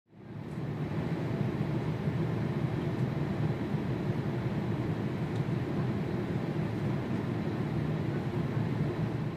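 Steady drone of an airliner cabin in flight: jet engine and airflow noise. It fades in over the first half second, then holds even.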